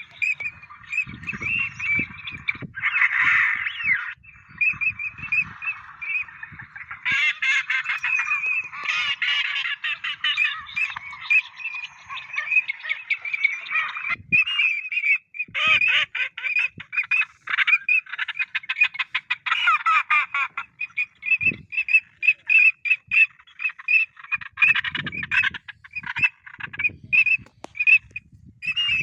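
A dense chorus of waterfowl calling, many rapid calls overlapping, with a couple of brief lulls.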